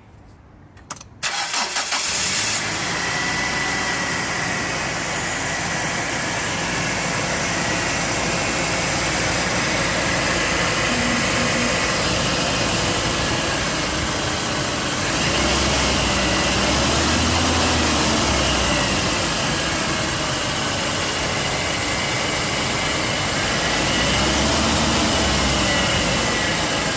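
A vehicle engine starts about a second in, then keeps running. Its speed rises and falls slowly twice, once in the middle and once near the end. The owner records it for an abnormal noise it is making.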